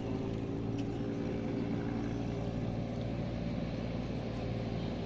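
Boat engine running at a steady speed, an even drone with no change in pitch.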